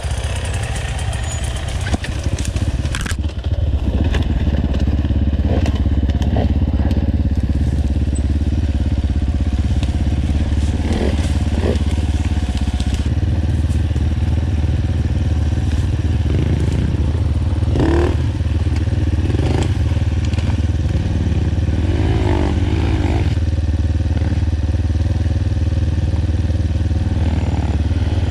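Enduro motorcycle engine running steadily while riding, with a few brief rises and falls in engine speed, over clattering and crunching from rough ground.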